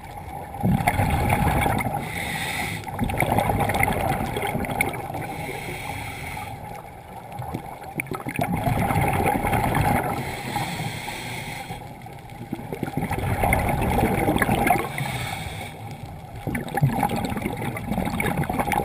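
Scuba regulator exhaust bubbles rumbling and gurgling, heard underwater through a GoPro camera housing. They come in surges every few seconds with the diver's breathing.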